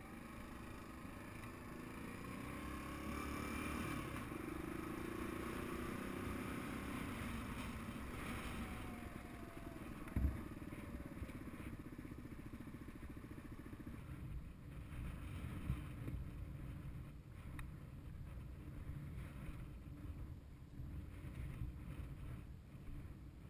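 Suzuki DR200's single-cylinder four-stroke engine running as the dirt bike is ridden over a rough dirt track, its pitch rising over the first several seconds. About ten seconds in there is a sharp thump, the loudest sound here. After that the running is lower and uneven, with scattered clatter.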